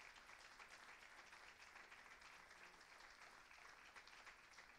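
Audience applauding: a faint, steady patter of many hands clapping.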